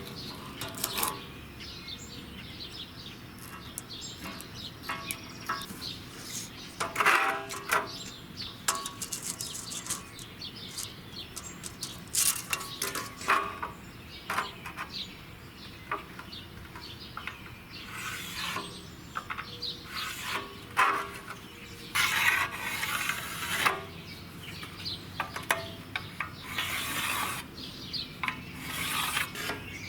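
Scattered clanks, clicks and scrapes of metal tools and steel plate being handled, with no steady machine running.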